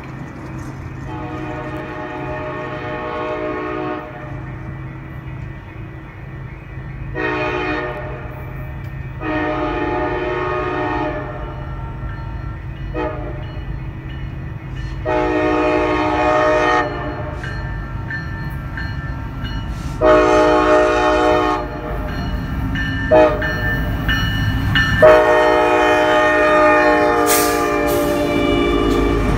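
Union Pacific diesel freight locomotive's multi-chime air horn sounding a series of long and short blasts as the train approaches, the last one long and loud as it nears. A steady diesel rumble builds underneath as the train draws close.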